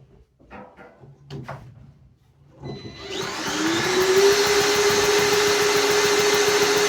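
A drill spinning over a vintage Briggs & Stratton engine's flywheel and crankshaft with the spark plug out, to test the ignition for spark. It starts about two and a half seconds in with a whine that rises as it comes up to speed, then runs at a steady whirr; a few faint handling clicks come before it.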